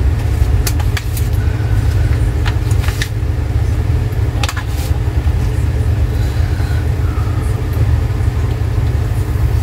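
Steady low rumble with a few short, sharp clicks and taps scattered through the first five seconds.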